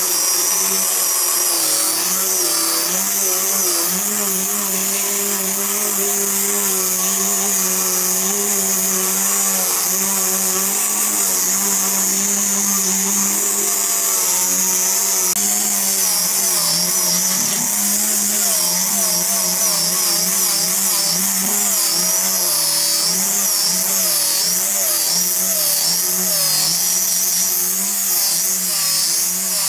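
Handheld electric angle grinder with a sanding disc running continuously as it sands a wooden board. Its motor pitch wavers up and down as the disc is pressed and moved over the wood, most noticeably in the second half.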